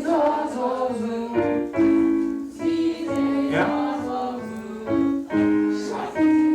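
A chorus singing a vocal warm-up exercise with piano: held notes that step up and down in pitch every second or so.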